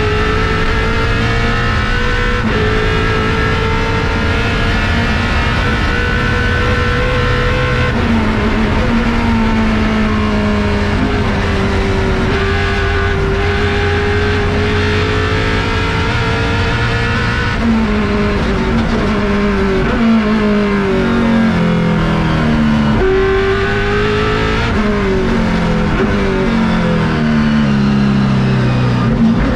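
Holden Torana touring car's V8 engine heard from inside the cabin at racing speed, the revs climbing and dropping in steps through gear changes and braking, with a run of quick rev swings in the second half.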